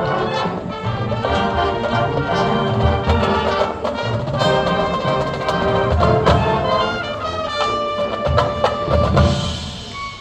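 High school marching band playing: full brass section with drums and percussion, thinning out near the end to a few held notes.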